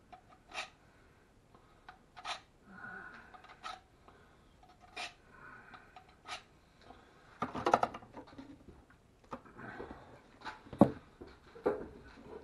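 A dull fillet knife being drawn through a handheld knife sharpener, one short scraping stroke about every second and a half. After about seven seconds the scraping and handling get busier, with a sharp knock near the end.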